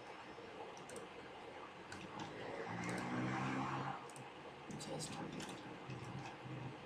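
Computer keyboard typing and mouse clicks: scattered single clicks and keystrokes. A faint low voice is heard for about a second and a half near the middle.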